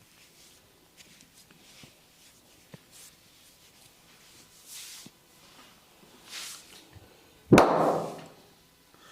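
Massage hands brushing and rubbing softly over hair and skin with faint small clicks, then one loud hand slap about seven and a half seconds in.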